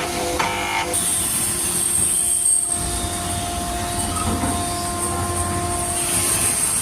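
Woodworking power tool running with a steady high-pitched whine and hiss, with a low rumble joining about three seconds in.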